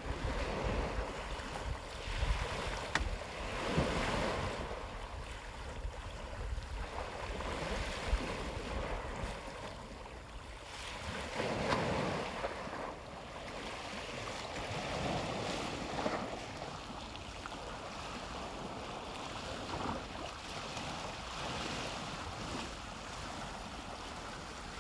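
Sea waves washing onto the shore in slow swells, over a low wind rumble on the microphone.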